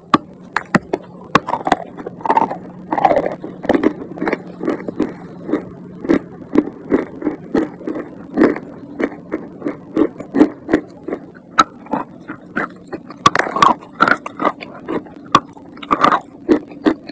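Chewing dry chalk close to the microphone: a steady run of crisp crunches, about three a second.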